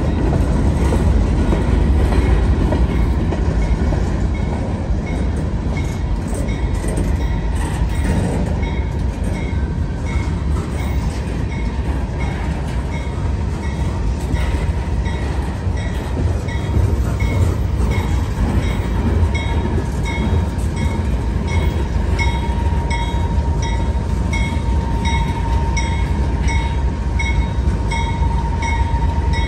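Freight train passing close by: a steady rumble of freight cars rolling on the rails, with a grade-crossing bell dinging about one and a half times a second through most of it. A thin, steady wheel squeal grows stronger near the end.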